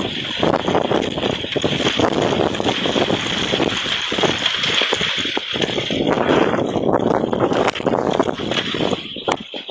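Strong wind gusting and buffeting the microphone, a loud rushing noise broken by many crackling knocks, easing briefly near the end.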